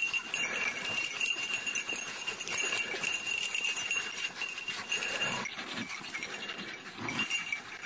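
Young jagdterriers worrying a carcass: scuffling and rustling in dry brush, with a few faint growls. A thin steady high-pitched tone runs under it, dropping out for a while after about five seconds.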